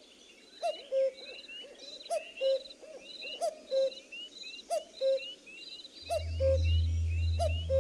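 Birds calling: a low two-note call repeated about every second and a half, with higher chirps and short rising whistles in between. About six seconds in, a steady low hum joins and the sound gets louder.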